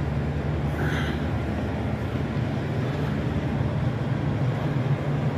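Steady low drone of idling diesel engines, with one short higher-pitched sound about a second in.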